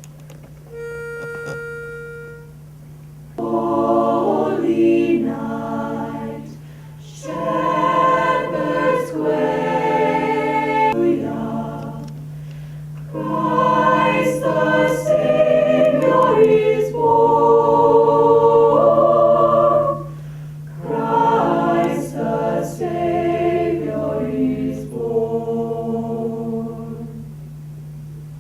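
A single steady note is held for about two seconds, then a high school choir sings unaccompanied in phrases with short breaks between them.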